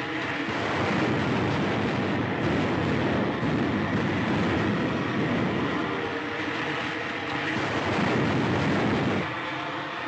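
Rocket-ship engine sound effect from an old film soundtrack: a loud, steady rushing roar as a squadron of stratosleds takes off, easing off about nine seconds in.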